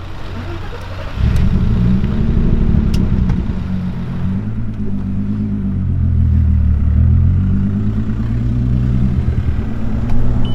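Turbocharged VR6 engine of a MK4 Golf GTI running on the road, with a low, steady drone. It gets louder about a second in, as the car pulls away under throttle.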